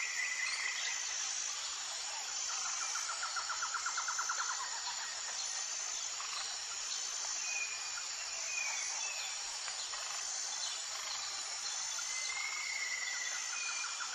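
Outdoor birdsong over a steady, high, insect-like hiss with a repeating chirp. A rapid trill comes about three seconds in, and short whistled calls follow around eight and thirteen seconds.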